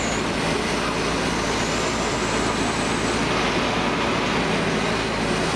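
Hitachi Zaxis 250LCN excavator's diesel engine running steadily.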